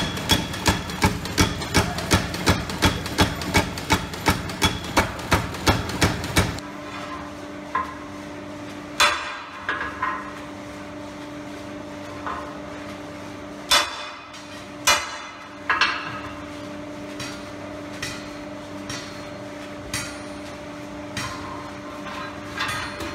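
Power hammer pounding a glowing steel bar with steady blows, about two and a half a second, stopping about six and a half seconds in. After that, a steady hum under scattered hand-hammer strikes on hot steel at a swage block: a few loud clangs among lighter taps.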